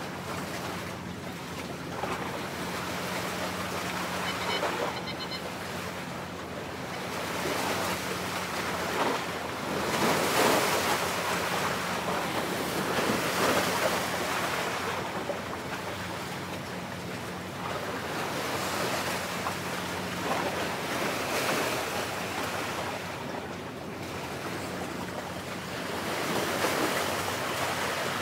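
Gusts of wind buffeting the microphone over the wash of sea against a harbour breakwater, with a faint steady low hum underneath.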